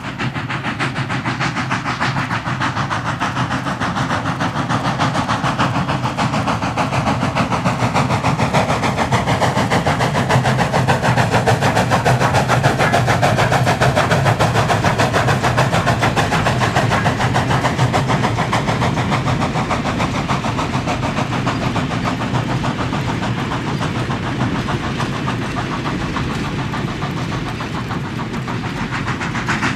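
Steam locomotive hauling a freight train past, with the wheels of its freight cars clicking over the rail joints. It swells to its loudest about halfway, as the engine and tender go by, then eases off as the cars and caboose roll past.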